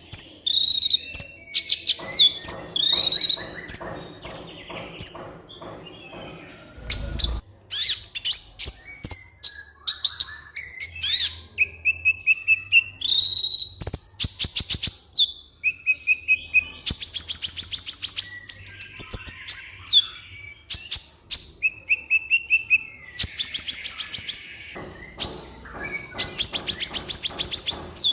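Kolibri ninja sunbird singing: high, quick whistled chirps and short sliding notes, broken up by fast rattling trills.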